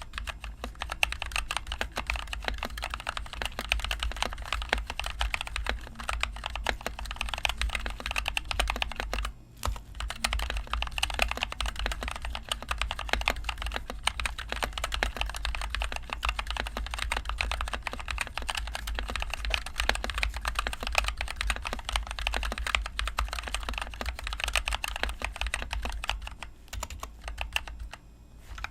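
Steady, fast typing on a NovelKeys NK65 Entry Edition mechanical keyboard with NovelKeys Cream linear switches and HyperX Pudding keycaps: a dense run of keystroke clacks. The typing pauses briefly about a third of the way through and again near the end.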